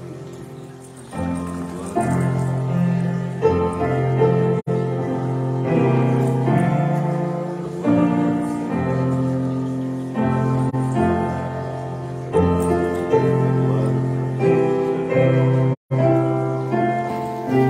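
Slow instrumental music played on a keyboard instrument, with held chords that change every second or two. The sound briefly drops out near the end.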